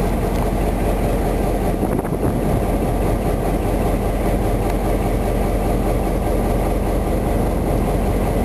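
Diesel engines of an ALCo RSD16 and EMD GR-12W locomotive pair running steadily, heard from aboard the locomotive as the freight train rolls slowly.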